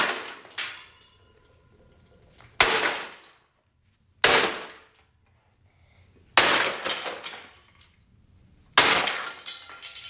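Sledgehammer blows smashing a plastic coffee maker: four heavy crashes about two seconds apart, each trailing off in a clatter of breaking parts.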